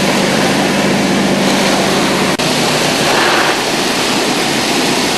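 Vac-Tron vacuum excavator running at full suction: a steady loud rush of air through the suction pipe over a low engine drone as it clears a drain lateral, with a brief break about two and a half seconds in.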